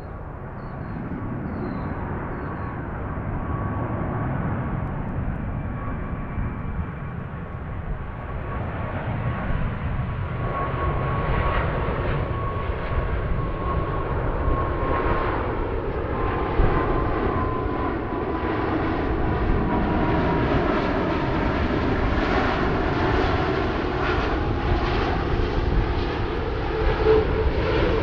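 Airbus A340-600 on final approach with its four Rolls-Royce Trent 556 turbofans at approach power, flying past: a steady jet rumble and rush that grows louder, with a whining tone that slides slightly lower about halfway through as the jet goes by.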